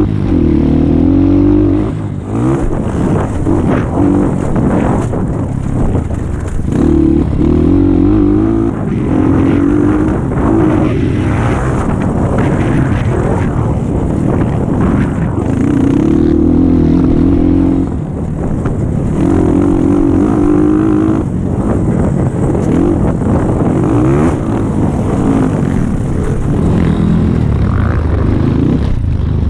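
Dirt bike engine heard from on board, revving hard and dropping back again and again as the throttle is opened and closed over the course, with short knocks from the rough ground.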